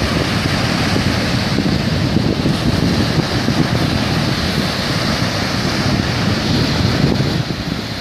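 Steady wind on the microphone over the noise of surf and water.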